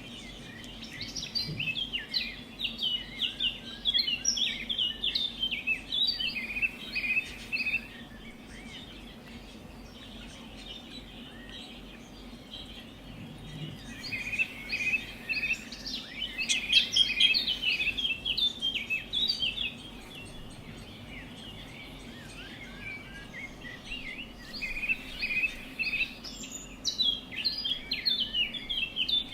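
Budgerigar warbling and chattering in three long bouts of quick chirps, with quieter pauses between.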